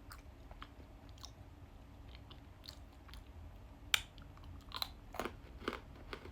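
A person chewing and crunching a chocolate-topped butter biscuit close to the microphone, with scattered sharp crunches, the loudest about four seconds in and several more near the end.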